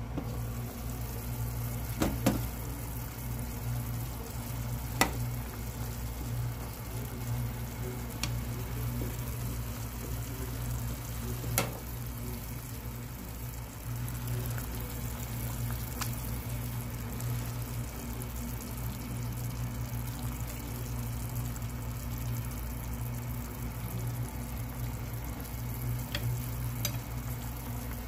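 A pot of vegetable soup simmering on a stove, with a few sharp clinks of the glass lid and ladle against the pot, over a steady low hum.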